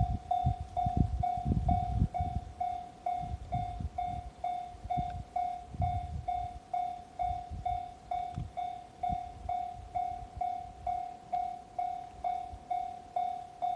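Japanese level-crossing warning bell ringing, an even electronic ding a little under twice a second. A passing train rumbles and knocks under it, dying away by about halfway through.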